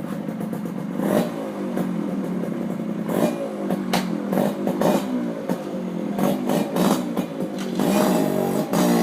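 Suzuki AX100 two-stroke single-cylinder engine, fitted with a generic aftermarket racer exhaust pipe, idling for about a second and then revved in a series of quick throttle blips, the pitch rising and falling with each one.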